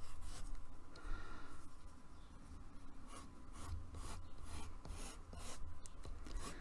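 Coloured pencil sketching on paper: a run of short, scratchy strokes.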